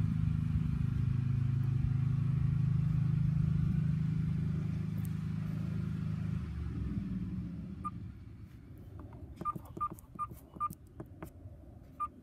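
A low steady hum, like a motor, fades away about two-thirds of the way through. Then the Worx Landroid robot mower's keypad gives several short single-pitch beeps, with button clicks, as it is powered back up.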